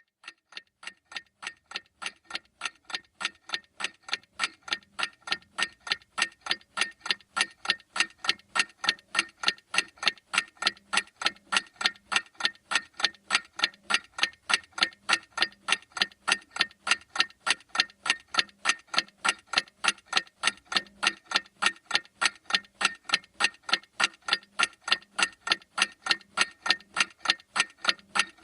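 Clock ticking in a steady, even rhythm of sharp ticks, fading in over the first several seconds and then holding at a constant level.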